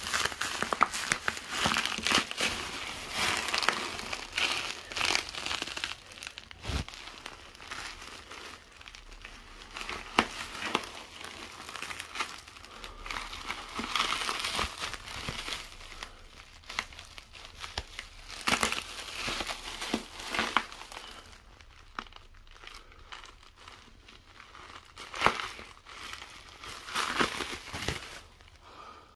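Plastic bubble wrap crinkling and crackling as a small dog moves about on it. The crinkling is busy for about the first twenty seconds, then comes in sparser bursts.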